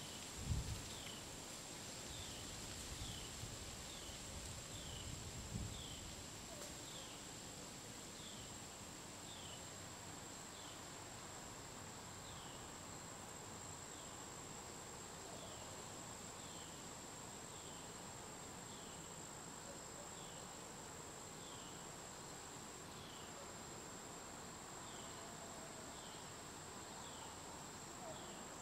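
An insect chorus: a steady high-pitched drone, with a short falling chirp repeating about once a second. A few low thumps come in the first six seconds.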